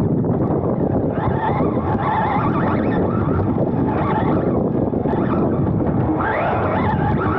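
Onboard sound of a Serpent SRX2 2wd electric RC buggy racing on artificial turf: the brushless motor's whine rises and falls with the throttle over a steady rush of tyres, drivetrain and wind on the microphone.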